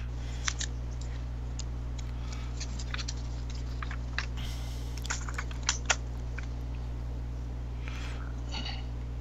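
Steady low electrical hum, with scattered light clicks and rustles from logbook pages being handled and turned, heard over a video call.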